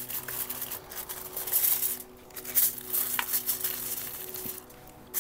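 Aluminium foil being crinkled and pressed down, in irregular rustling bursts.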